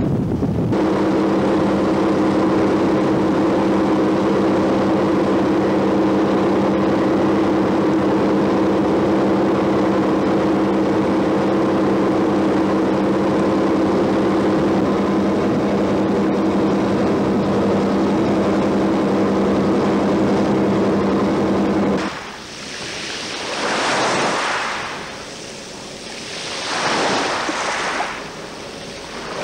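Steady drone of a boat engine running at constant revs, with wind and water hiss. About three-quarters of the way through it cuts to waves washing in, in rising and falling surges.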